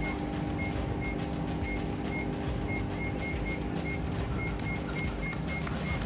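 Dozens of microwave ovens running together with a steady hum, while their keypad beeps sound again and again at irregular intervals and buttons and doors click as they are switched off one after another.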